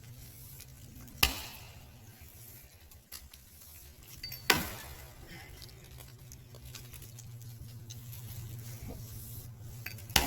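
Hand-forged camp axe chopping into a downed pine limb: three sharp strikes, a few seconds apart, each trailing off briefly.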